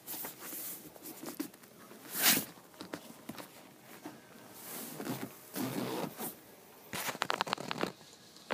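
Irregular handling and movement noises, rustles and knocks, with one loud knock about two seconds in and a quick run of sharp clicks near the end. No engine is running.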